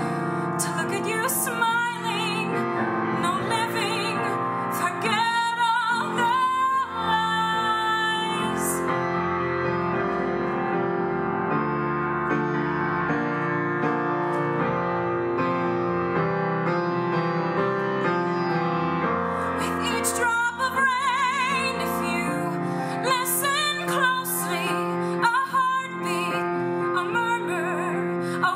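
A woman singing a slow cabaret ballad with vibrato over piano accompaniment. In the middle the voice stops for about ten seconds and the piano plays alone, then the singing comes back.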